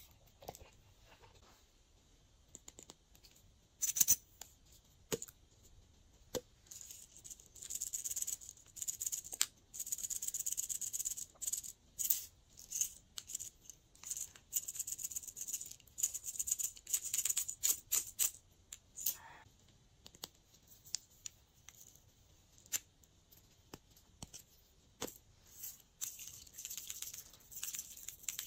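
Sprinkles and glitter shaken out of small plastic soda-bottle-shaped tubes, rattling in repeated bursts and pattering onto slime, with a few sharp plastic clicks in between.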